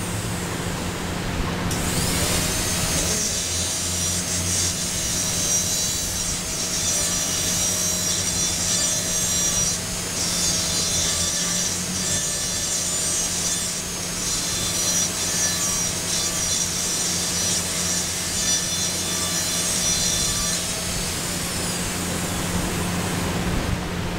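High-speed dental handpiece whining at a high pitch while its straight fissure burr cuts a class I cavity into a plastic typodont molar. It spins up about two seconds in and winds down near the end.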